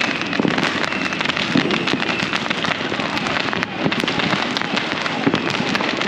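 Many fireworks and firecrackers going off at once across a city, countless sharp pops and bangs overlapping into a continuous crackle with no pause.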